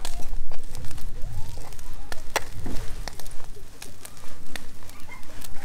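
Wood campfire crackling, with irregular sharp pops scattered over a low steady rumble.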